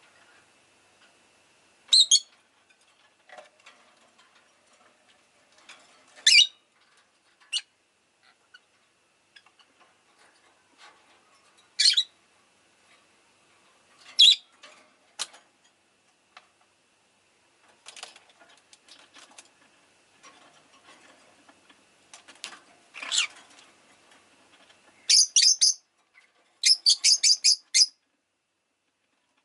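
Rosy-faced lovebird giving single sharp, high chirps every few seconds, then two quick runs of rapid chirps near the end.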